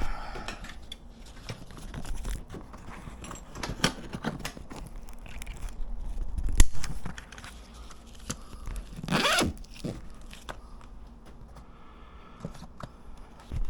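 Soft motorcycle pannier being handled and fastened: fabric rustling and crinkling, scattered clicks and knocks of clips and hardware, and a short scraping rasp about nine seconds in.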